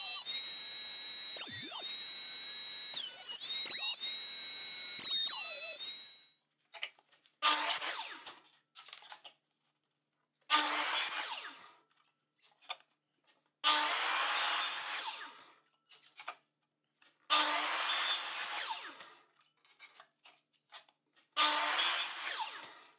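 A benchtop thickness planer runs with a high whine for about six seconds, then stops. A miter saw follows with five short cuts through thin strips of wood. Each cut is a loud burst of about two seconds that starts at once and dies away as the blade spins down.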